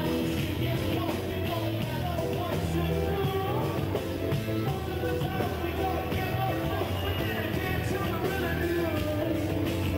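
Live rock band playing loudly on a concert stage, with vocals over the band.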